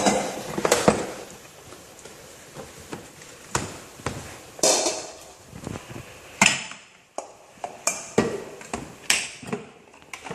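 Irregular knocks and clinks of kitchen utensils and containers being handled, a dozen or so separate hits, some with a short ring.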